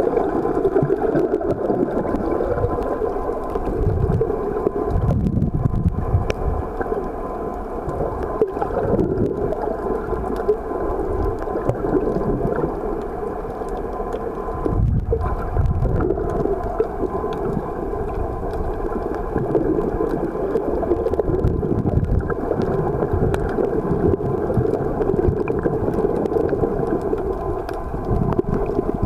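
Muffled underwater noise picked up by a camera in its housing: a steady low drone with a faint hum and slow irregular surges every few seconds.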